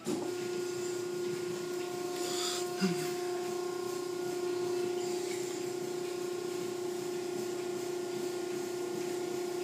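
Automatic tunnel car wash machinery running: a steady motor hum over a hiss of spraying water, with a single knock about three seconds in.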